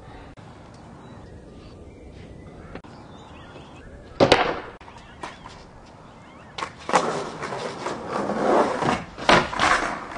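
Skateboard on a concrete bank: a sharp, loud clack of the board hitting the concrete about four seconds in, then from about six and a half seconds a few seconds of wheels rolling and the board clattering, with several sharp knocks.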